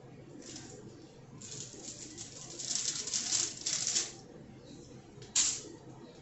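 Rustling and crinkling handling sounds from food preparation by hand, louder between about one and a half and four seconds in, with one sharp click a little after five seconds.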